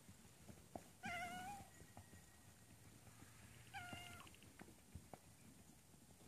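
Two short, high-pitched animal calls about three seconds apart, each well under a second, with faint scattered taps in a quiet background.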